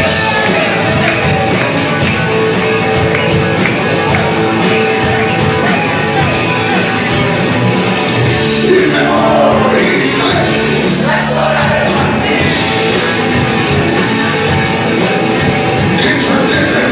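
Rock music with a singing voice, played loud and steady.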